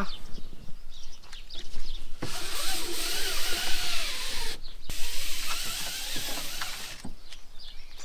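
Mosquito net on a camper van's sliding door being pulled along its track, a rough mechanical rattle with a few clicks.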